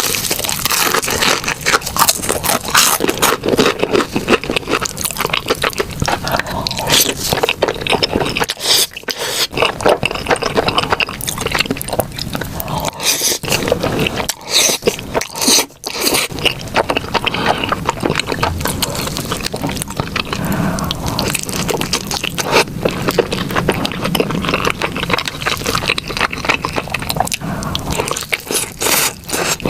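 Close-miked eating sounds: continuous crunching and chewing of food, dense crackly clicks with a momentary break about halfway through.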